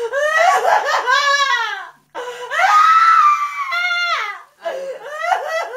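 A woman crying out in a high, wailing voice in two long bouts, the second holding a high cry steady about halfway through. The crying then breaks into quieter whimpering sobs near the end, uttered in a hypnotic trance.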